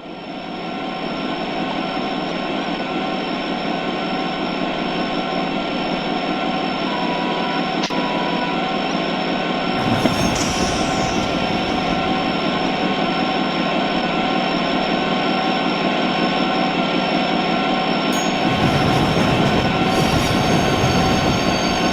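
A steady, noisy rumble with a few faint steady tones through it, fading in from silence at the start. Its low end grows heavier about halfway through and again near the end.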